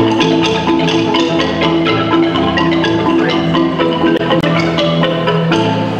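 Kolintang ensemble: several Minahasan wooden xylophones struck with mallets, playing a quick, busy melody with many rapid strokes over steady lower notes.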